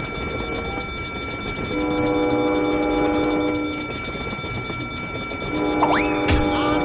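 A train horn sounds two long blasts, the first about two seconds long and the second about a second and a half near the end, over the steady rumble of a running train. A brief swooping whistle rises and falls about six seconds in, with steady high tones throughout.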